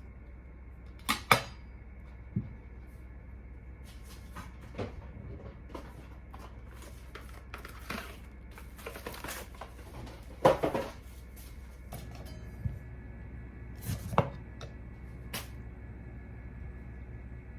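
Kitchen handling sounds: scattered knocks and clatters of utensils, dishes and containers being picked up and set down on a counter, the loudest about a second in and again about ten seconds in, over faint background music.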